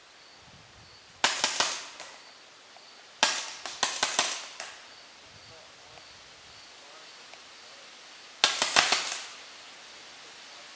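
Paintball markers firing three quick strings of sharp pops. One comes about a second in, a longer one from about three to four and a half seconds, and another just after eight seconds.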